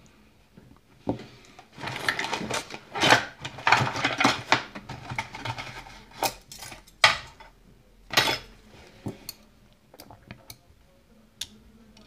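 Small metal lock pins and a euro cylinder's plug clinking and rattling as the key pins are worked out of the plug. A dense jumble of clicks comes in the first half, followed by a few sharp single clicks and scattered light ticks as pins and the plug are set down.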